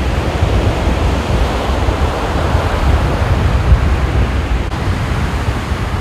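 Heavy surf breaking on a sandy beach in a storm, a steady wash of noise, with strong wind buffeting the microphone as a fluttering low rumble.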